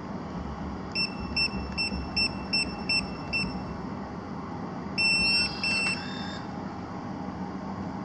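Smart door lock keypad beeping once for each key pressed: seven short, same-pitched beeps as the PIN and hash key are entered. About five seconds in, a longer two-part chime with a short tune sounds as the code is accepted and the lock opens.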